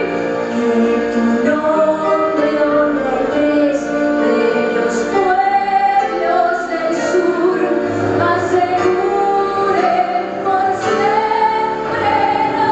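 A woman singing live with a band of piano, guitar and drums, holding long sung notes.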